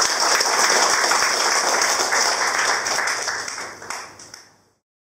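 A small audience applauding, a dense patter of many hands clapping that fades away in the last second or two.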